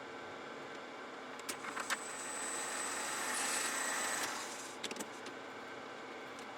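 Small metal lathe running while a brass bush is chamfered: a few sharp clicks, then a swell of cutting noise with a thin high whine for about two seconds in the middle, before the lathe settles back to its steady running.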